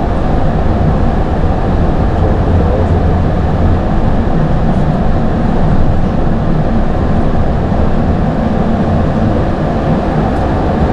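Steady, even rumble of an Airbus A220-300 heard from the aircraft's nose, with most of the sound low and no distinct events.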